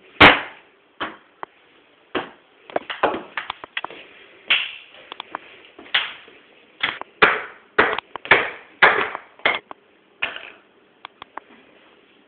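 A loud sharp knock just after the start, then a long, uneven run of knocks and thuds that stops about two seconds before the end.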